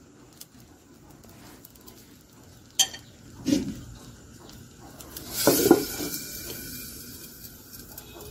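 Chitoi pitha batter sizzling faintly in a hot clay pan, with a couple of light knocks, then the lid set down on the clay pan with a clatter about five and a half seconds in.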